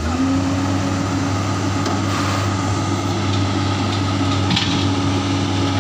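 Komatsu PC210 excavator's diesel engine running at a steady speed, with a single clank about four and a half seconds in.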